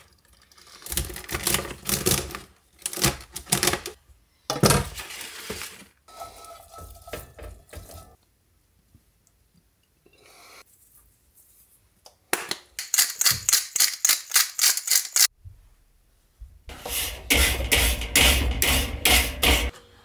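A knife cutting through asparagus stalks on a paper plate, then asparagus being put into a skillet, and a run of rapid even clicks. Near the end, charcoal briquettes tumble out of a bag into a kettle grill with a loud, dense clatter, the loudest sound in the stretch.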